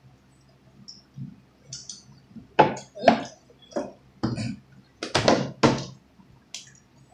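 A drinking cup and dishes being handled at the table: a quick series of sharp clinks and knocks in the second half, after a quiet start.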